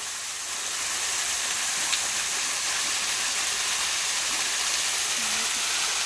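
Small waterfall pouring off a rock ledge and splashing onto the ground: a steady hiss of falling water that grows a little louder in the first second, with one faint click about two seconds in.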